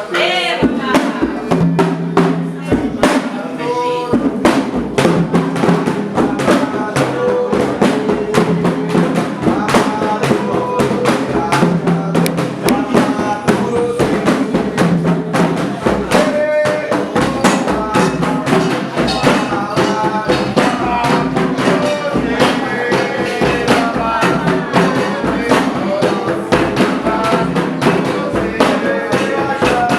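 Candomblé ritual drumming: hand drums beating a fast, steady rhythm, with voices chanting over them.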